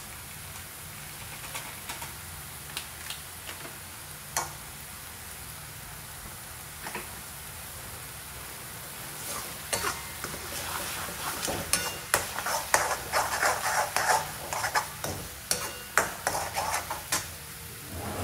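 Onion paste frying in oil and ghee in a pan, being stirred. A few scattered clicks come first, then from about halfway in a spatula scrapes and clatters against the pan in quick succession.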